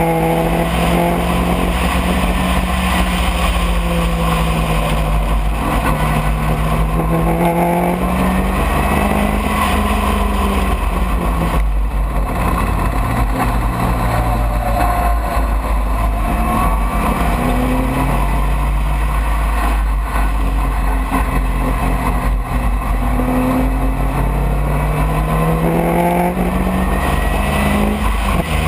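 Open-cockpit sports racing car's engine, heard from on board, driven hard on track: its note climbs under acceleration and drops back at each gear change and under braking, over and over.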